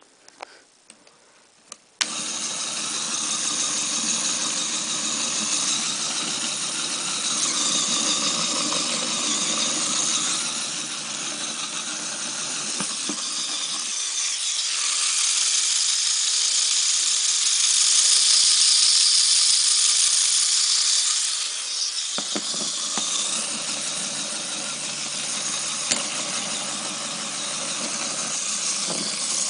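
Lego electric motor driving a gear train and axles, starting suddenly about two seconds in after a few clicks and then running with a steady high whir and gear rattle. Partway through, the lower part of the sound thins out for several seconds, then comes back.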